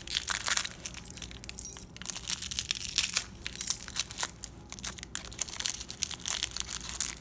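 Packaging being torn open and crumpled by hand: irregular crinkling, crackling and tearing as a mailed package is unwrapped.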